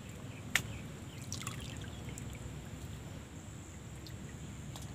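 Pond water trickling and lapping around a person wading chest-deep, with one sharp click about half a second in.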